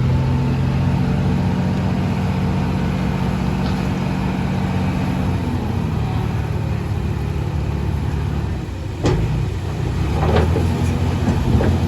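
Diesel engine of a Komatsu D31A bulldozer running steadily under load; its pitch drops slightly about halfway through. Several sharp clanks come in the last few seconds.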